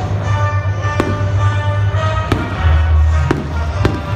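Fireworks bursting, about four sharp bangs roughly a second apart, over loud music with a heavy bass line.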